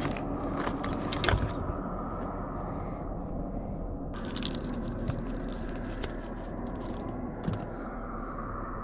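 Fishing gear being handled while a fly rod is set up: scattered clicks, scrapes and crunches, with a small knock late on, over steady background noise.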